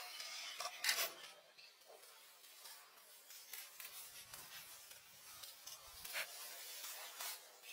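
Faint rustling with scattered sharp clicks, and soft low thuds about halfway through: footsteps on dry fallen leaves.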